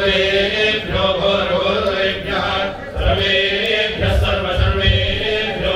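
Male priests chanting Sanskrit Vedic mantras, the voices held on long steady notes, with a short pause a little before the middle.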